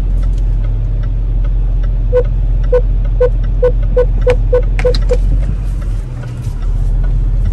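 Car's parking sensor beeping, the short beeps coming faster and faster as the car closes in on an obstacle while parking, then stopping. Low steady hum of the engine and cabin underneath.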